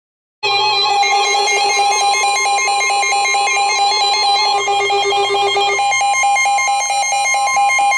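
Emergency Alert System attention tone: a loud electronic alarm that starts suddenly about half a second in and pulses rapidly between tones. It signals the start of a tornado warning broadcast.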